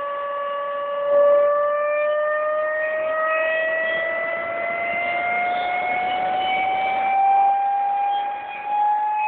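Marboré turbojet engine running with a high whine whose pitch climbs slowly and steadily, as the engine spools up.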